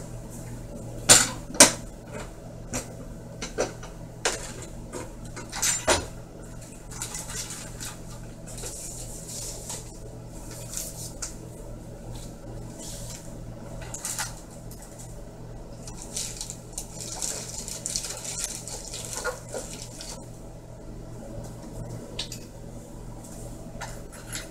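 Kitchen utensils and dishes being handled: a few sharp clinks and knocks in the first few seconds, then soft rustling and scraping, over a steady low hum.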